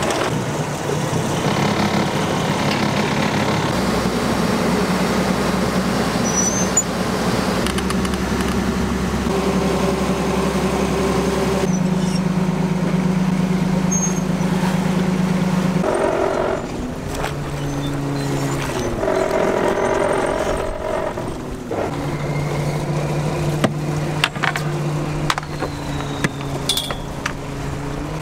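Fishing boat's engine running steadily, its note shifting several times and sagging then recovering about two-thirds of the way through.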